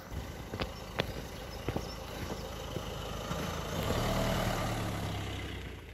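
Footsteps on paving, then a car drives past on the road, its engine and tyre rumble loudest about four seconds in and fading toward the end.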